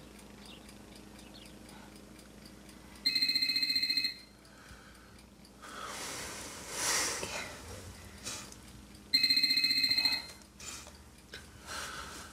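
Telephone ringing twice, each ring about a second long and the two some six seconds apart.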